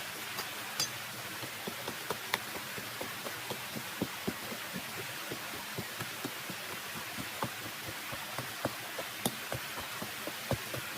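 Steady rain hissing, with many irregular drops ticking and tapping close by.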